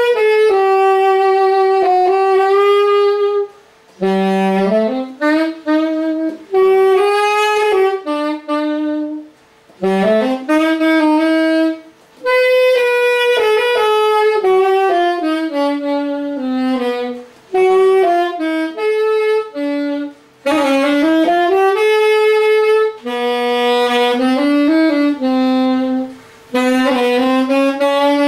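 Yamaha YAS-280 alto saxophone played solo: a melody of held and moving notes in phrases, with short pauses for breath between them.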